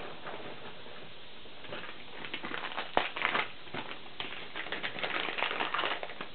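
Light clicks and rustling of small objects being handled over a steady hiss, with one sharp click about three seconds in the loudest and a denser patch of rustling near the end.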